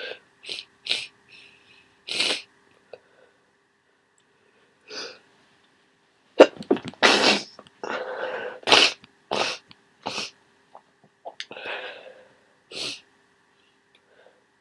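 A person congested with a head cold sneezing repeatedly: messy, wet sneezes in quick runs, the densest cluster about halfway through.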